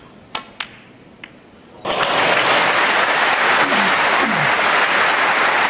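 Two sharp clicks of snooker balls, the cue ball struck and then hitting a red. About two seconds in, a crowd breaks into loud applause, which keeps going.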